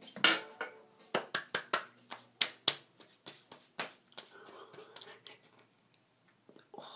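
Hands slapping aftershave onto freshly shaved skin: about a dozen sharp slaps in quick, uneven succession over the first four seconds.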